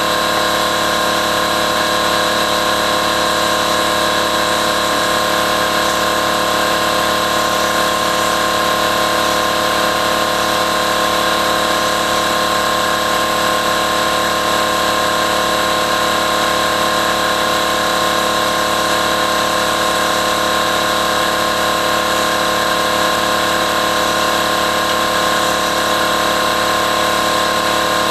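Steady machine drone made of several fixed tones over a noisy hum, unchanging in pitch and level throughout.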